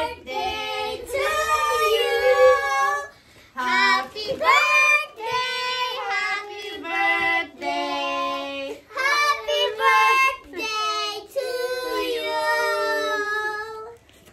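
A child singing in long held phrases with short breaks between them.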